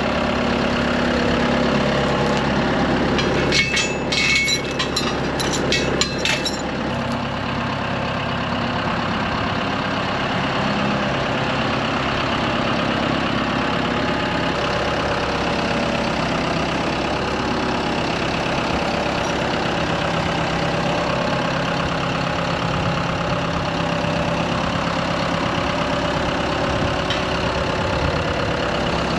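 Engine of a heavy machine with lift forks running steadily while it is maneuvered, with a cluster of metal clanks and rattles from about four to seven seconds in.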